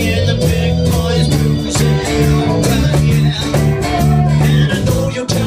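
Live rock and roll band playing, led by guitars over bass, with a steady beat.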